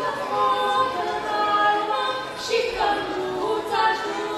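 Women's voices singing a Romanian Christmas carol (colindă) unaccompanied, in long held notes that glide from pitch to pitch.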